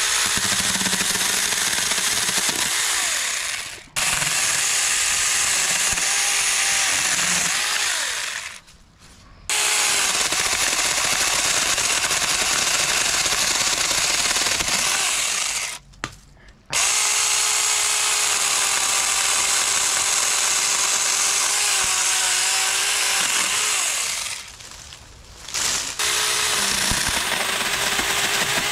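Saker 20V cordless mini chainsaw running and cutting through fruit-tree branches in five runs broken by short pauses. The motor's whine dips in pitch now and then as the chain cuts.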